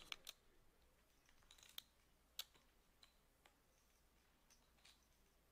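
Poker chips clicking faintly now and then as a player fiddles with his stack: a handful of short, separate clicks, the sharpest about two and a half seconds in.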